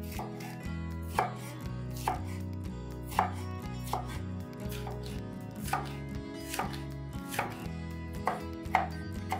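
Knife chopping on a cutting board: about ten separate, unhurried strokes, roughly one a second.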